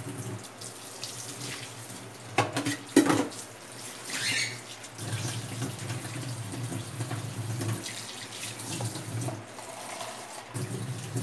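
Water running from a kitchen tap into the sink, with two sharp knocks a little over two and three seconds in.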